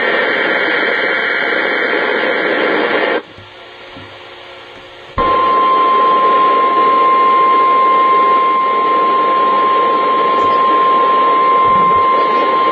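NOAA Weather Radio EAS alert over a weather-radio receiver with static. A digital SAME header burst plays until about three seconds in. After a short gap, the steady single-pitch warning alarm tone starts about five seconds in and holds to the end.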